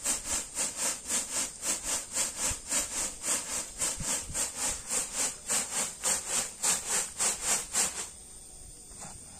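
Ground corn grits rasping and swishing across a woven bamboo winnowing tray (tampah) as it is shaken back and forth, about three or four strokes a second. The shaking stops abruptly near the end.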